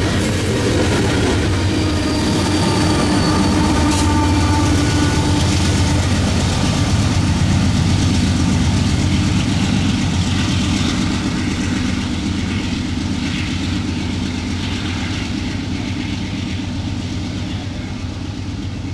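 Union Pacific coal train's gondolas rolling past as a steady rumble with wheel clatter, then the rear pushing locomotive, a GE C44ACCTE, with its engine running as it draws away, the sound slowly fading over the second half.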